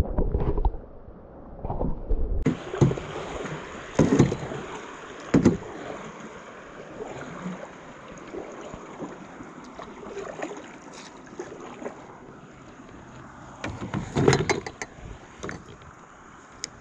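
Muffled sound through a camera held at the water's surface for about the first two seconds, then knocks and thumps of a paddle and gear against a canoe hull over faint water sounds. The knocks are scattered at first and bunch into a loud cluster near the end.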